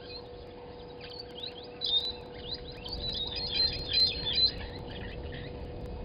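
Brown-headed parrots calling: a burst of rapid, high-pitched chattering calls that builds about a second in, peaks around two and four seconds in, and dies away after about four and a half seconds.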